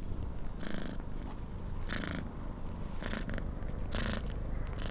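Wind buffeting the microphone outdoors, a steady low rumble, with five short hissing bursts about a second apart.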